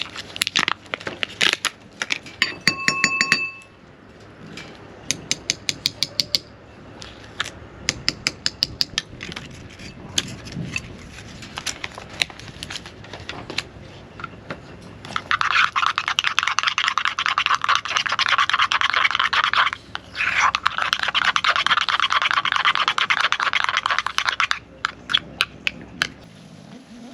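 Food-preparation handling sounds: scattered clicks and knocks of utensils, a short ringing clink about three seconds in, then a dense crackle of many small clicks lasting about nine seconds, broken briefly in the middle.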